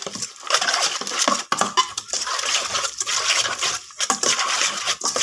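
Spoon clinking and scraping against a bowl in a dense, continuous clatter as the salad is tossed and mixed with its seasoning.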